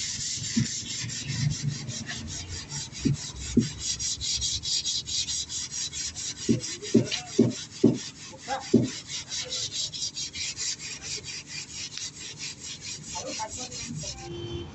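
Hand sanding of body filler on a car bonnet: abrasive paper rubbed over the putty in quick, even back-and-forth strokes, a dry rasping hiss. A few short pitched notes sound faintly in the background about halfway through.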